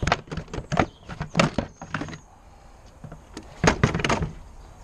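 Sharp clicks and knocks of hard plastic as the Ford Fiesta Mk6's air filter box is handled and worked free of its rubber-grommet mounts: a quick run of them in the first two seconds, then another cluster near the end.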